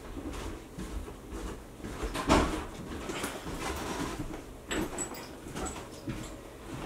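Objects being handled and moved about: scattered knocks, scrapes and rustling, with one louder thump about two seconds in and a few sharp clicks near the end.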